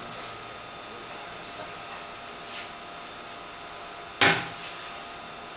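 A single sharp knock on a hard surface about four seconds in, over a low kitchen background with a few faint clicks and rubbing sounds.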